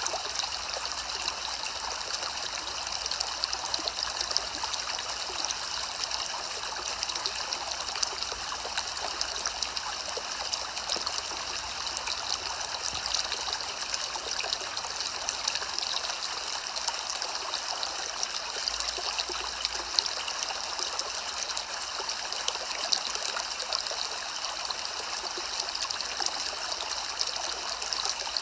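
Steady soft rain: an even hiss of many fine drops that does not change.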